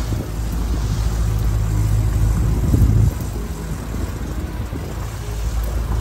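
Mercury outboard motor running steadily as the boat trolls, with a low drone that swells and eases slightly. Wind and the rush of the wake are mixed in.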